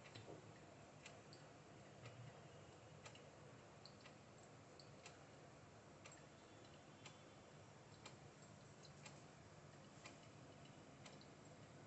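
Near silence: faint room tone with a low steady hum and a light, regular tick about once a second.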